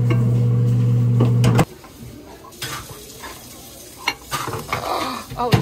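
Microwave oven humming steadily, then cutting off abruptly with a click about a second and a half in. After it, stainless steel lunch containers clink and knock as they are set on the glass turntable.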